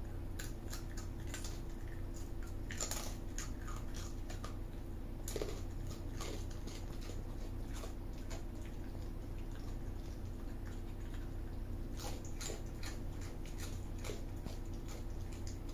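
A raccoon eating dry chips, with irregular crisp crunches and clicks that come in short bursts. A steady low hum runs underneath.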